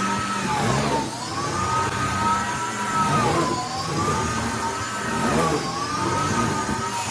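Vacuum cleaner running steadily, its motor whine dipping and rising again about every two and a half seconds as the nozzle is pushed back and forth.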